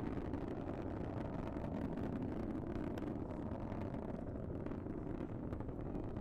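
Falcon 9 rocket engines in flight: a steady low rumble with a faint crackle through it.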